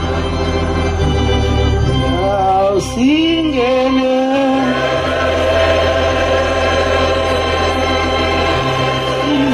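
Organ music played on a keyboard: slow, sustained chords over a held low bass, with the upper notes sliding between pitches about three seconds in.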